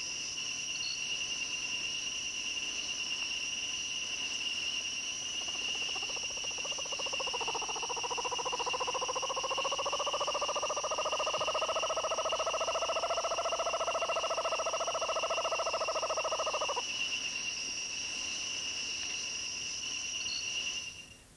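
Night-time subtropical forest insects keeping up a steady high-pitched chorus. From about six seconds in, a long low trill from an unseen animal joins, rising a little and then holding for about ten seconds before stopping abruptly.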